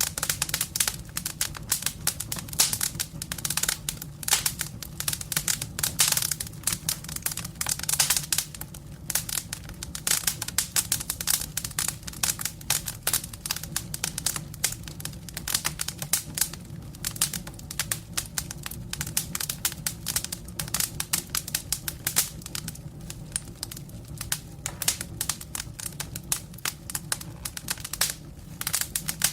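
Wood fire crackling and popping: dense, irregular snaps over a steady low rumble of burning.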